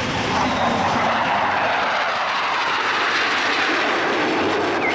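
Jet engines of a pair of fighter jets flying past overhead: a steady, loud roar.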